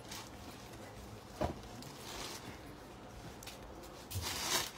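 Low background noise with one short knock about a second and a half in, then cloth rustling near the end as an embroidered suit is spread out on a table.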